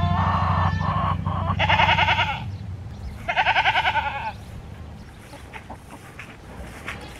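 Myotonic goats bleating: a quavering call at the start, then two more, about two and three and a half seconds in. A steady low hum lies under the first five seconds.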